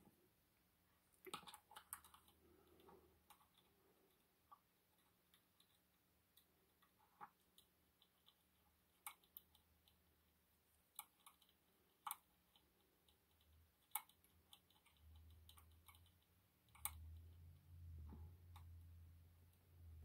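Faint, scattered clicks and small scrapes of a lock pick and tension tool working inside an EVVA MCS magnetic lock cylinder, heard through a contact microphone. A low hum comes in for the last five seconds.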